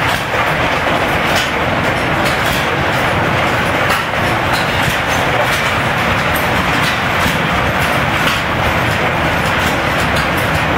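Steady mechanical clatter of several antique stationary engines running at once, with many irregular sharp pops and clicks over a dense din.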